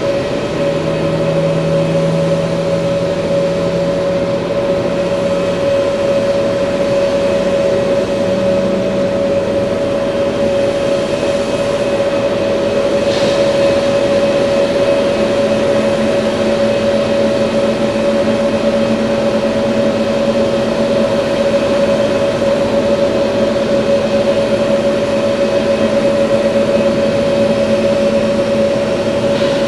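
Airbus A320neo's jet engines running steadily at low power, a strong steady mid-pitched tone over a hiss, with lower tones that shift pitch slightly about halfway through.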